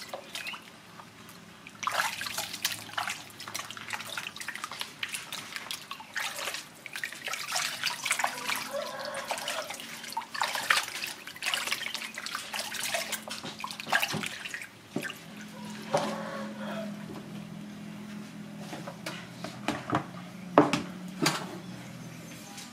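Water splashing, sloshing and dripping in a plastic basin as hands scrub and rinse a skin-on piece of wild boar meat. There are two louder knocks near the end.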